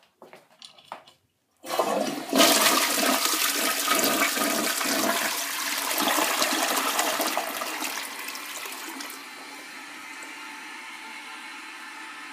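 A 2011 Crane Plumbing Rexmont toilet flushing. After a few light clicks, water rushes into the bowl about a second and a half in and swirls loudly for several seconds. It then settles to a quieter steady hiss as the tank refills.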